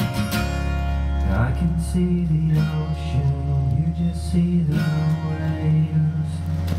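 Live band music without vocals: strummed acoustic guitar over sustained electric bass notes.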